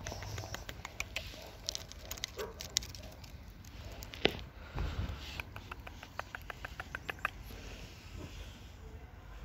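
Domestic cat eating wet food: quick runs of small wet clicks from its chewing and lip-smacking, about five a second, with one louder click a little after four seconds in.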